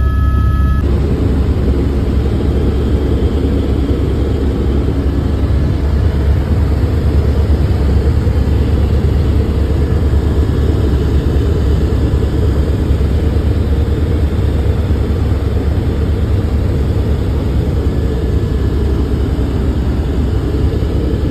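Helicopter in flight, heard from inside the cabin: a loud, steady rumble of engine and rotor noise with no let-up.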